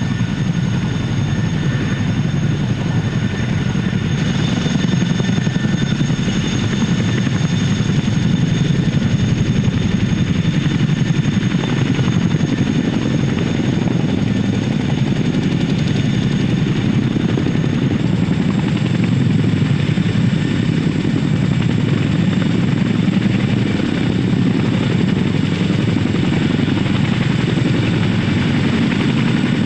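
Boeing CH-47 Chinook tandem-rotor helicopter running: a steady, rapid rotor beat with a high turbine whine held over it.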